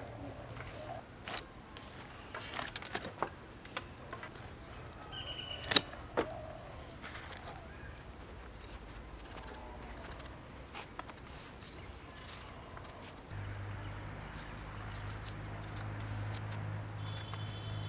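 A knife cutting and peeling the rind off a winter melon (ash gourd): scattered light scrapes and clicks, with one sharp click about six seconds in. A steady low hum runs underneath and grows louder about two-thirds of the way through.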